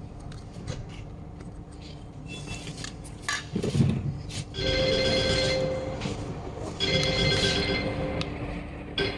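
A phone ringing twice, each ring about a second and a half of steady multi-tone chiming, with a short gap between. Before the rings there are light clicks of plastic parts being handled.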